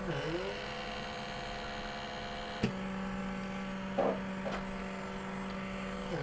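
Small electric motor of a facial vacuum pore cleaner running with a steady hum, its pitch dipping briefly and recovering at the start and again near the end, as it sucks blackheads from the nose. A single sharp click is heard a little before the middle.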